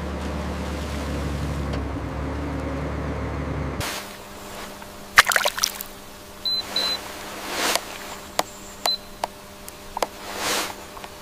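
A steady low engine drone from the lifting machinery as the tank is hoisted, cutting off about four seconds in. After it, water sloshes and splashes with scattered clicks, and a handheld scanner gives a few short high beeps, two close together and one a couple of seconds later.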